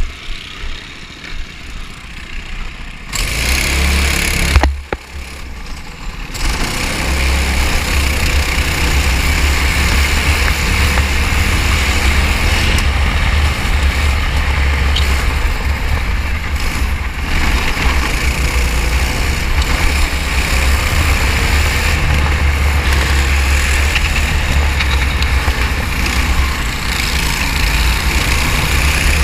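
Racing kart's engine running on track. After a quieter first few seconds and a sharp knock about five seconds in, it runs loud and steady with a heavy low rumble.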